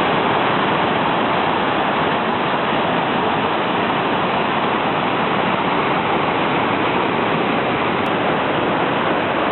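Ravana Falls, a waterfall about 25 m high, rushing: a steady, even noise of falling water that starts abruptly.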